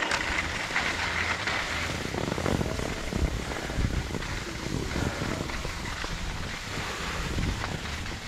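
Wind buffeting the microphone of a downhill skier's camera, uneven and gusty, over the steady hiss of skis sliding on groomed snow.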